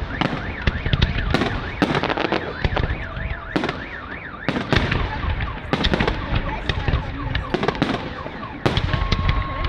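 Firework shells bursting in quick succession, sharp bangs and crackles one after another. An alarm warbles up and down for a couple of seconds early in the sequence.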